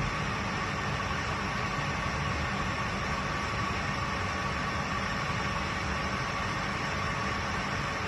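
Electric water pump running steadily with a hum and a faint whine, building pressure in the pipes toward its 3-bar cut-off.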